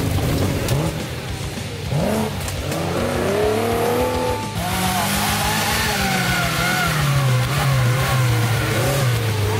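Off-road 4x4 engines revving under load, the pitch rising and falling again and again. A little over four seconds in, the sound cuts abruptly to another engine, which keeps revving up and down.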